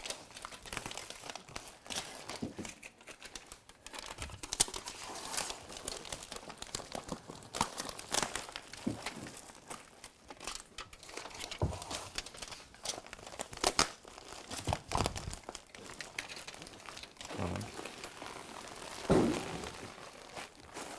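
Foil-faced duct insulation and foil tape crinkling and crackling as the tape is handled and pressed onto the insulation, in irregular crackles and clicks, with a louder dull thump near the end.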